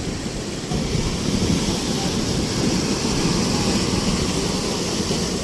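Large ocean waves breaking and washing on the shore, with wind buffeting the microphone; the hiss of the surf grows stronger about a second in.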